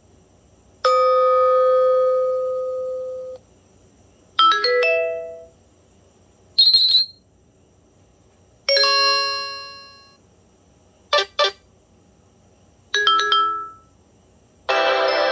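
A run of different short BlackBerry Pearl 3G (9100) alert tones played one after another, with about a second of silence between them: a long single chime that fades out, short clusters of chiming notes, a high chirp, a quick double beep, and a fuller chord near the end.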